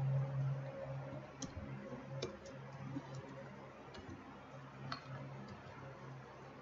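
Scattered keystroke clicks on a computer keyboard, a few separate taps over several seconds, over a low steady hum that is loudest in the first second.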